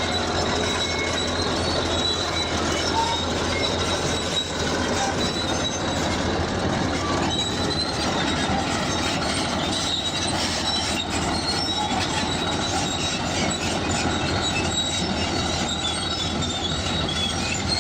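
Bulldozer working with its engine running steadily and its steel crawler tracks squealing and squeaking throughout.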